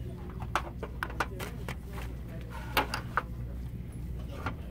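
Glass candle jars and their domed glass lids clinking and tapping as a hand sorts through them: a scattered series of sharp clicks, the loudest just under three seconds in.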